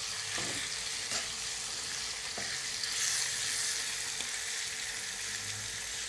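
Potatoes and chickpeas in masala sizzling in oil in a kadai, stirred with a metal spatula that scrapes and clicks against the pan a few times.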